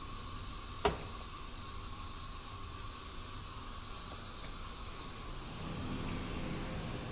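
Steady background hiss with a faint high-pitched whine, broken by a single sharp click about a second in; faint low humming tones come in near the end.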